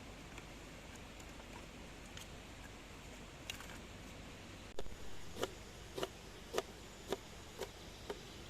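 A faint steady hiss, then, about halfway through, a run of sharp, evenly spaced knocks, about two a second.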